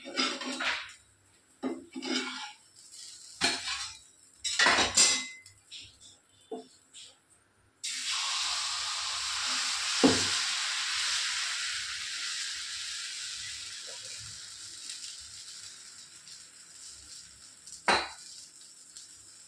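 Steel utensils clinking and scraping against a dosa tawa. About eight seconds in, a loud sizzle starts suddenly as dosa batter is poured onto the hot tawa, then fades slowly. A single sharp clink comes near the end.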